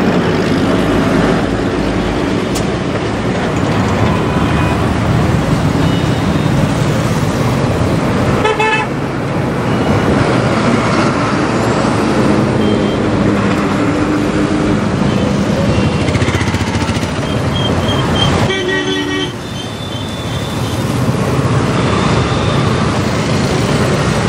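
Steady road traffic noise with vehicle horns honking now and then, the two loudest honks about a third of the way in and again about three quarters through.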